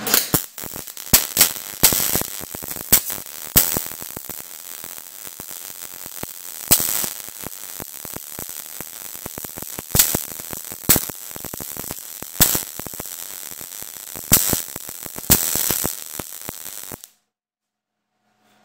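MIG welding arc, .030 ER70S-6 solid wire under C25 shielding gas, running a bead on a galvanized steel T-joint whose zinc coating has been ground off: a steady crackle broken by frequent sharp pops. The arc stops suddenly about seventeen seconds in.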